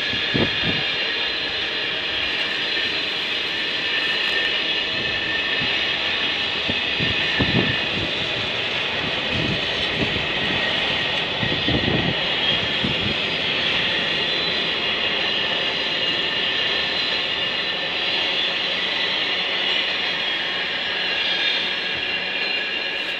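Container freight train's wagons rolling past steadily, with a sustained high-pitched whine over the running noise and a few low thuds of wheels passing over rail joints between about seven and thirteen seconds in.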